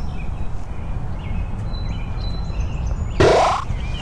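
A short, loud whooshing sound effect that falls in pitch about three seconds in: the teleport effect for a man appearing out of nowhere. Under it runs a steady low rumble, with faint bird chirps.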